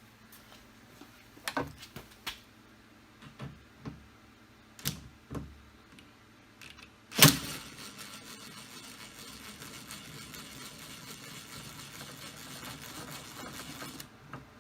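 Tools clicking and knocking against the door's metal, then one loud knock. A cordless drill/driver then runs steadily for about seven seconds and stops suddenly, backing out an 8mm bolt that holds the old door handle.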